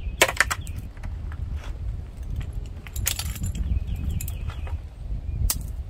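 Metallic clinks and rattles of hand tools and parts being handled at the front fork of an e-bike during assembly, in three clusters: just after the start, about three seconds in, and once near the end. A steady low rumble runs underneath.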